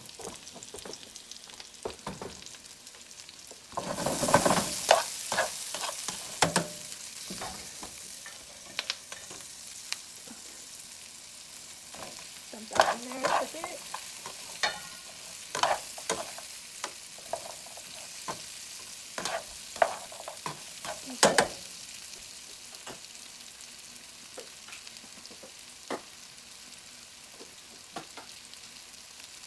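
Frying pan of sliced red peppers and onions sizzling steadily. About four seconds in the sizzle swells loudly as the fried beef strips are added. It is followed by repeated clicks and scrapes of the mixture being stirred in the pan.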